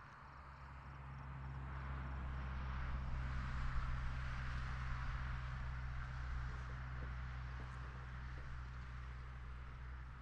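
A pickup truck driving past on a road, its tyre and engine noise swelling to a peak about four seconds in, then slowly fading as it moves away. A steady low hum runs underneath.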